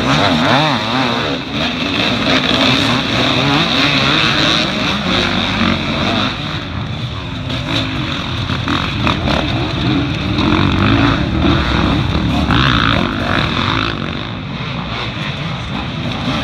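Several off-road dirt bike engines revving hard and accelerating past one after another, their pitch rising and falling as the riders work the throttle and shift, with tyres roosting loose dirt.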